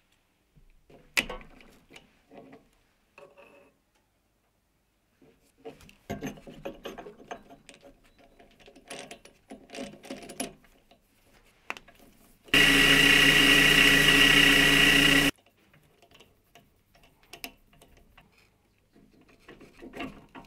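Metal parts and a three-jaw lathe chuck being handled: scattered clicks, taps and scraping. About midway a small electric machine motor runs steadily for roughly three seconds, the loudest sound, starting and stopping abruptly.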